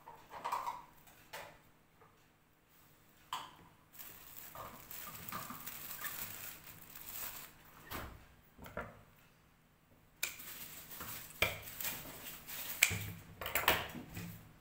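Hands tearing oyster mushrooms apart and dropping the pieces into a plastic colander: soft rustling and tearing with scattered light knocks and clicks, busiest in the second half.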